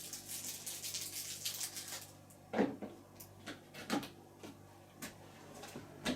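Crinkly rustling for about two seconds, then a series of separate plastic clicks and knocks as a detergent tablet is handled and put into the dishwasher's detergent dispenser.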